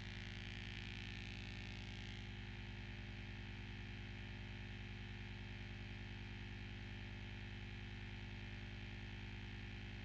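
Steady low electronic buzzing drone, a layered hum with a fast even pulse, with a hiss over it that drops away about two seconds in.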